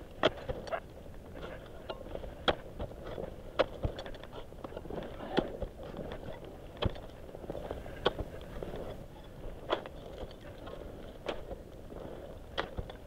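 Ice axe picks struck into firm, steep snow while climbing: a string of sharp, irregular crunching strikes, roughly one a second.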